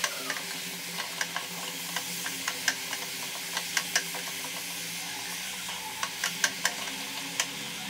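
Shredded cabbage with grated coconut being stir-fried in a metal pot for cabbage thoran: a spoon scrapes through the food and clicks irregularly against the pot over a steady sizzle.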